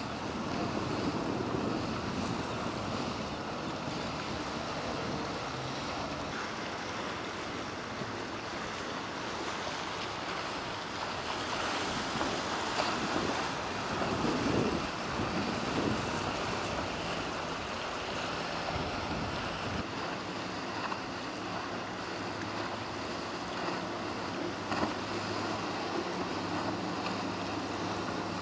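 Boat engines running as powerboats pass through choppy water, under the wash of waves and wind buffeting the microphone.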